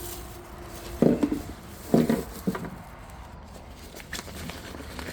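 Handling noises from jumper cables and their packaging: a few short knocks and light clicks with some rustling.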